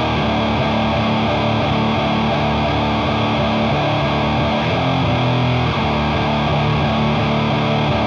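Electric guitar played through the Doomsaw, a one-knob HM-2-style chainsaw distortion pedal: a heavily distorted riff of held low notes that change every second or so.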